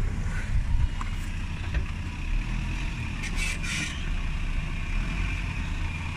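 Off-road 4x4's engine running steadily at low revs while the vehicle is eased into position on a dirt track. A short, higher noise comes in about three seconds in.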